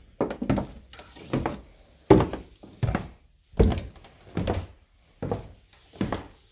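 Footsteps on a wooden plank floor, a dull thunk with each step at a steady walking pace of a little more than one step a second.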